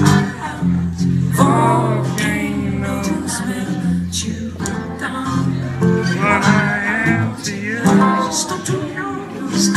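Live solo performance: acoustic guitar strummed with a man singing long, wavering notes over it, amplified through the venue's sound system.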